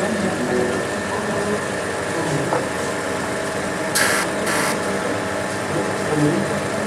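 Gem-faceting machine running steadily with its lap spinning; about four seconds in, two short hisses as the stone on the faceting arm is touched to the lap to grind a facet.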